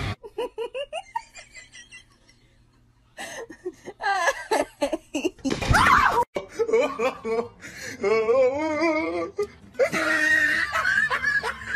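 People laughing in several bursts, with a quiet pause early on.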